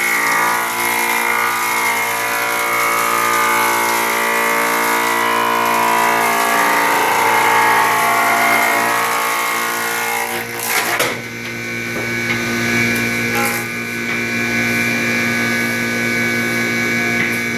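Electric wood planer running and planing a board for a door frame, with a busier cutting noise over the steady motor for about the first ten seconds. A few knocks follow, then the motor runs on more evenly.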